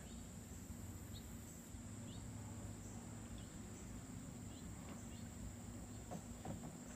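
Quiet summer backyard ambience: insects trill steadily at a high pitch, with a few faint, short bird chirps scattered through. A couple of faint knocks come near the end.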